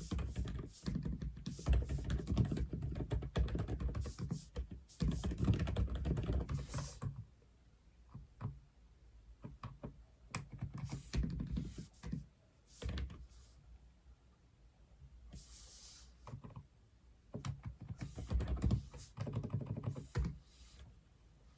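Typing on an Aula F87 mechanical keyboard: a fast run of keystrokes for the first several seconds, then scattered single key presses with short pauses, and another quick burst near the end.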